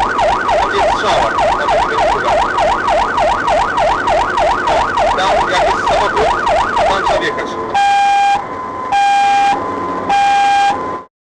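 Electronic emergency-vehicle siren, heard from inside the vehicle. It runs in fast yelp mode, sweeping up and down about four times a second. About seven seconds in it switches to a two-tone hi-lo pattern, alternating between two pitches roughly every half second, then cuts off suddenly near the end.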